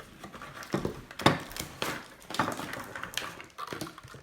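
Toy parts and packaging being handled on a table: a string of irregular clicks and knocks, the sharpest a little over a second in.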